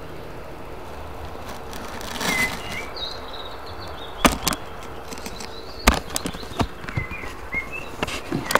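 Budgerigar giving short, quiet chirps, with several sharp clicks and taps very close to the microphone in the second half.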